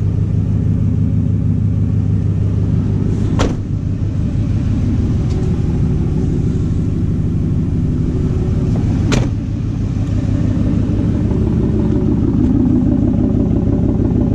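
A 2004 Ford F-150's 5.4 L Triton V8 idling steadily through a straight-piped 2.5-inch true dual exhaust with the rear cats deleted. Two sharp knocks cut in, one about three seconds in and one about nine seconds in.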